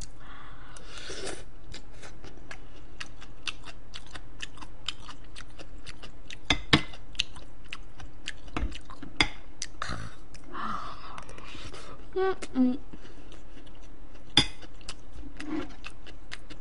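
Close-miked eating: wet chewing and mouth clicks, with a spoon and chopsticks clinking against china dishes, a few sharper clinks among them. A steady low electrical hum runs underneath.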